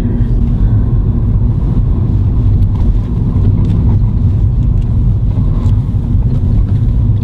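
Steady low drone of a car on the move, heard from inside the cabin: engine and road noise.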